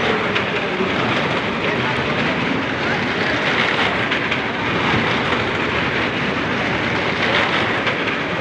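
Cars circling the vertical wooden plank wall of a Well of Death, their engines running continuously in a steady loud din, with crowd voices mixed in.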